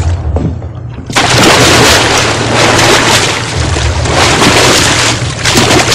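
Heavy water splashing and churning in a pond, starting suddenly about a second in and keeping up as a loud, rough wash of noise.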